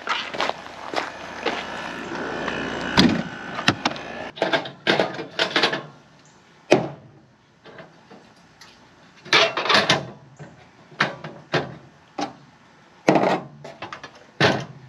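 Footsteps crunching on gravel, then a series of sharp knocks and metal clatters as a portable butane camp stove and its gas canister are handled and packed away on a picnic table.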